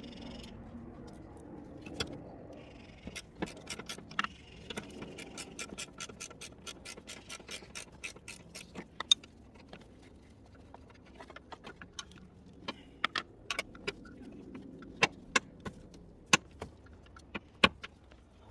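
Metal hand tools clicking and clinking against a metal bracket in the engine bay as the bracket is worked loose. About a third of the way in there is a run of quick, evenly spaced clicks, and near the end there are a few louder single knocks.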